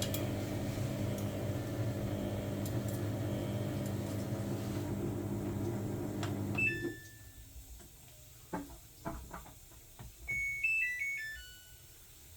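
Samsung washing machine running with a steady motor and drum hum that stops about seven seconds in, followed by a beep and a few knocks. Near the end, a short falling tune of electronic beeps plays.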